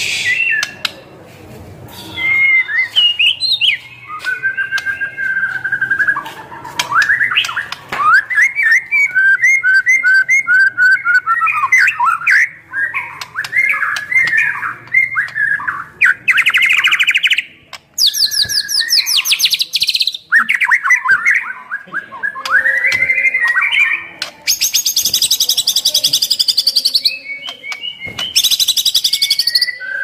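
White-rumped shama (murai batu) singing without a break: a varied string of clear whistled phrases, broken in the second half by several bursts of fast, harsh buzzy rattles. The song is packed with phrases mimicked from other birds.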